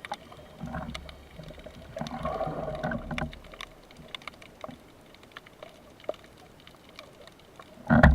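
Underwater sound from a spearfishing dive: scattered faint clicks and crackles, two low rumbling swells in the first few seconds, and a short louder burst at the end.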